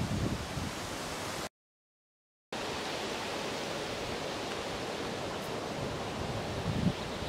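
Wind on the microphone outdoors: a steady hiss with low buffeting gusts near the start and again near the end. About a second and a half in, there is a second of dead silence at an edit cut.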